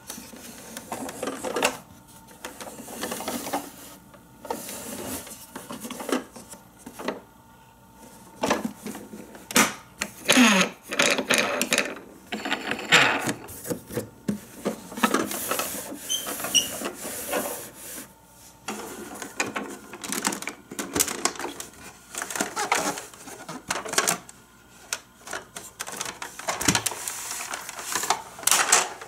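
Hard plastic clicking, rattling and scraping as a Micro Machines Speedway Rig toy semi-truck is handled and its hinged trailer panels are folded open into the racetrack playset.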